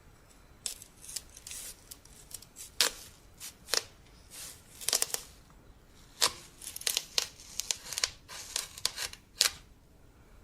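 Knife cutting through a watermelon: a run of crisp, irregular cracks and crackles as the rind and flesh split, with the loudest snaps about three, five, six and nine seconds in.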